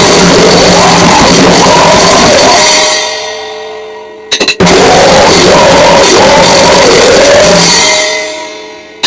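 Noisecore: a dense wall of distorted noise with pounding drums and yelled vocals, playing at full loudness in short bursts of about four seconds that fade out. Four quick sharp clicks about four seconds in start the next burst, and four more come at the very end.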